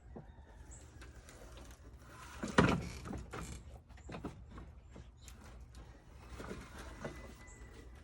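Dirt being put down and spread by hand, with scattered scrapes and knocks and one loud rustling thump about two and a half seconds in.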